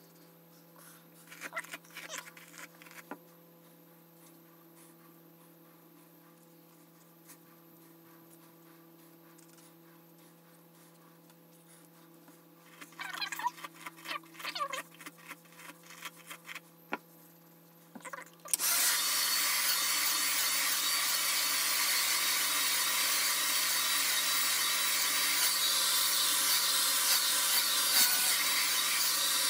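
Comb and hands rustling through hair. About 18 seconds in, a handheld hair dryer switches on suddenly and runs with a loud, steady blowing noise.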